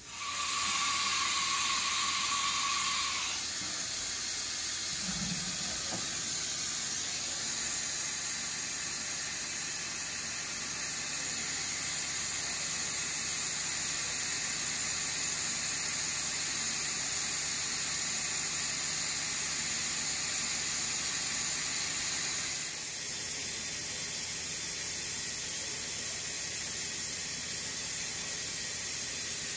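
1998 Haas VF-0E CNC vertical mill running a program with its flood coolant on: a steady hiss of coolant spraying and splashing over the spindle and workpiece. A steady high tone sounds for the first three seconds or so.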